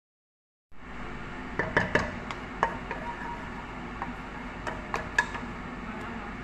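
Wooden spoon stirring in a cream-coloured coated cooking pot, scraping and knocking against its side with several sharp knocks about a second in and again around five seconds in, over a steady hiss.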